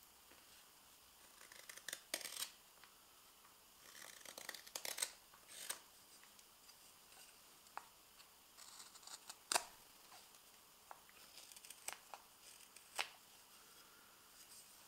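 Morakniv 106 carving knife slicing thin shavings from a spoon of fresh green maple, in short bursts of crisp cuts with pauses between, and one sharper click about halfway through.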